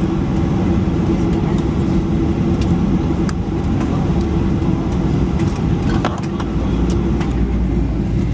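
Steady low engine rumble and hum heard from inside a moving vehicle, with scattered light clicks and rattles.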